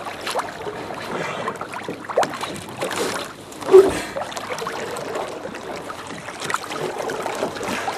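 Choppy lake water lapping and slapping against a boat, with irregular splashes and knocks. The loudest knock comes a little before the middle.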